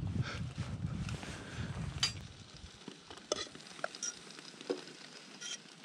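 Utensils and dishes being handled while serving food: a few light, scattered clicks and taps, over a low rumble that stops about halfway through.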